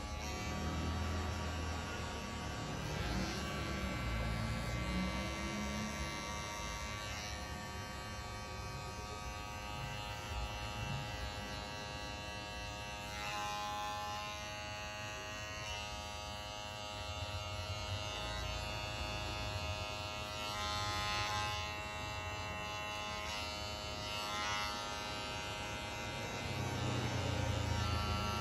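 Electric hair clippers running with a steady buzzing hum while cutting a fade into the back of the head.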